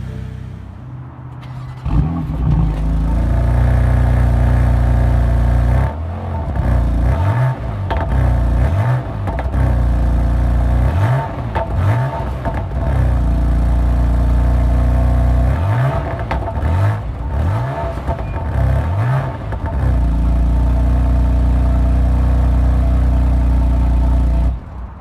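BMW M4 Competition's 3-litre twin-turbo six-cylinder engine being revved while stationary. It idles, jumps to a loud held rev about two seconds in, then gives a string of quick rev blips that fall and rise again between about six and twenty seconds. It holds high revs once more and drops back to idle near the end.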